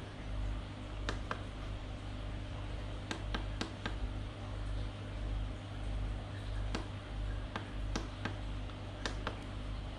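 Steady low hum with about ten light, scattered clicks at irregular intervals, from a hand working the push button of an LED strobe flash controller on a table.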